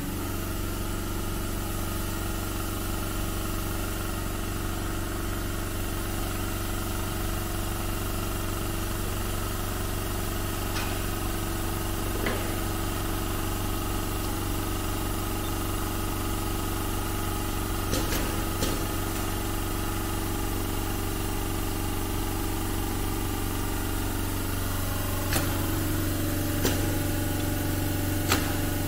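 Steady electric motor hum at the sewing-machine workstation, with a few sharp clicks from the machine being handled. The hum's tone shifts slightly near the end.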